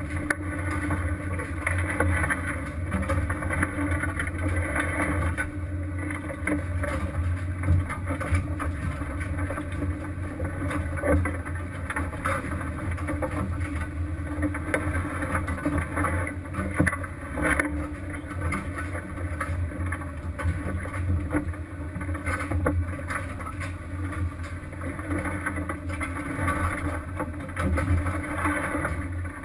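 Crab fishing boat's engine running steadily, with the noise of the deck and water around it and occasional knocks.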